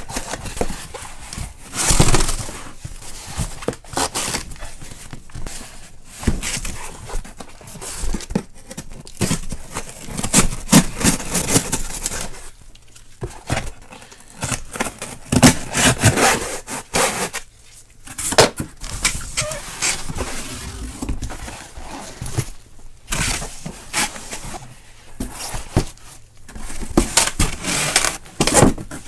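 Cardboard inner cases being pulled out of a cardboard shipping case: cardboard scraping and sliding against cardboard, with knocks and rustles at irregular intervals.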